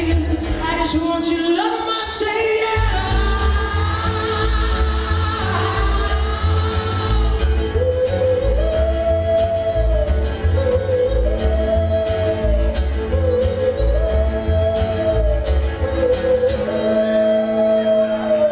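Live acoustic band playing an up-tempo folk song: strummed acoustic guitar, plucked upright bass keeping a steady low pulse, fiddle, and wordless singing. A long high note is held near the start, then a short rising-and-falling line repeats about every two seconds.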